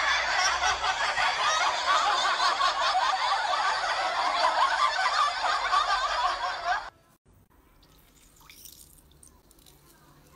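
Many people laughing together in a dense, crackly wash that cuts off abruptly about seven seconds in, followed by faint near-silence.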